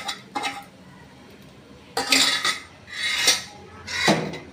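Stainless-steel spoon scraping and clinking against a steel pan and a steel plate as food is emptied out, in four short bouts with pauses between.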